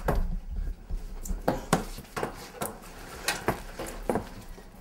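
About ten light knocks and clicks, irregularly spaced: a detection dog searching among boxes and bumping them.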